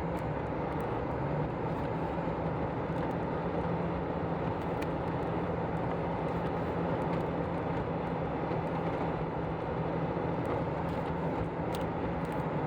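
A Toyota vehicle's engine and road noise: a steady low hum with an even rushing noise over it, the level unchanging throughout.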